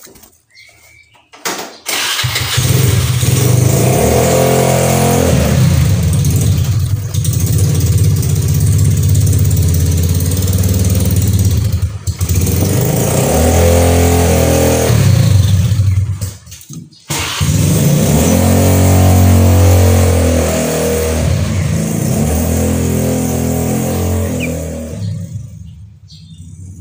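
A loud, close motor vehicle engine running and revving, the pitch rising and falling, starting about two seconds in, dropping briefly twice and fading away near the end.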